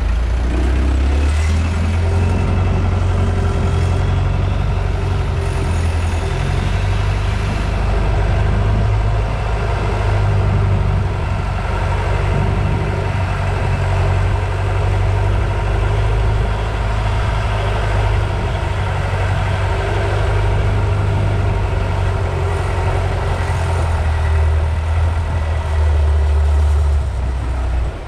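Tourist boat's engine running steadily under way, a loud, deep, unbroken drone.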